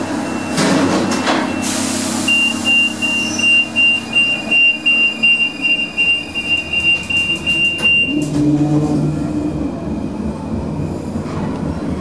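Paris metro train at the elevated platform: a short burst of air hiss, then a high, steady squealing tone that pulses rapidly for about six seconds, with clicks near its end. A lower hum follows briefly.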